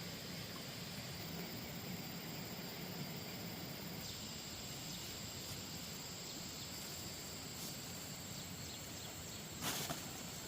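Outdoor ambience of insects chirring in a steady high drone over a soft background hiss, with one short knock near the end.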